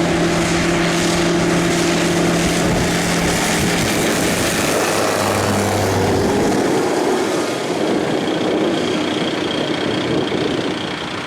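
Light propeller aircraft's piston engine and propeller at high power, a loud steady drone whose pitch drops about five seconds in as it goes past on departure.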